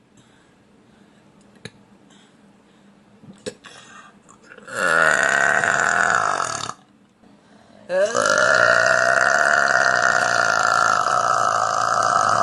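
A woman burping loudly: first a burp of about two seconds, then after a short pause a much longer one that slides up briefly at the start and holds a steady pitch for over four seconds. A few faint clicks come before them.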